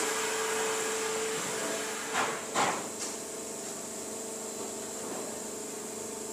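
Steady hum of bakery factory machinery with a constant tone. Two short knocks a little after two seconds in and a small click at three seconds.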